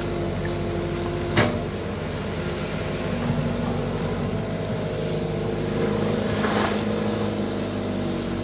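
Diesel engine of a Kato HD450 long-reach excavator running steadily while the boom works, with a single sharp knock about a second and a half in. Near the end a brief rush of water as the bucket goes down into the canal.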